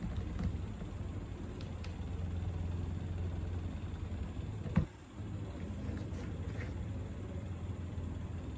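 Small DC micro motor spinning a homemade propeller, a steady low hum. About halfway through there is a sharp click, and the hum drops out for a moment before it carries on.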